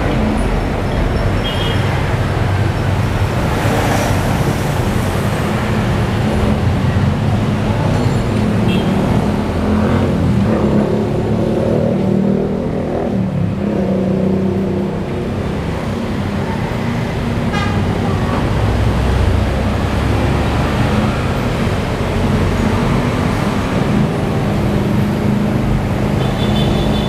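Road traffic: vehicle engines running in a steady low rumble, with car horns tooting now and then.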